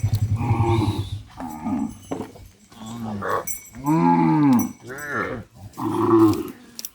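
Cattle mooing: about six separate calls, the longest and loudest rising and falling in pitch about four seconds in. A motorcycle-like engine running at the start fades out within the first second.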